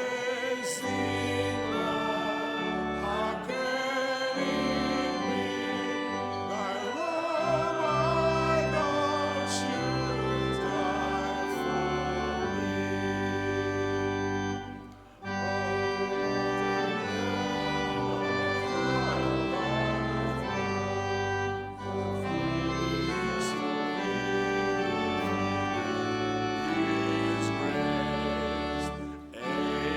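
Church organ playing a hymn in slow held chords, with singing along through parts of it; the music breaks off briefly twice, about halfway through and near the end, between phrases.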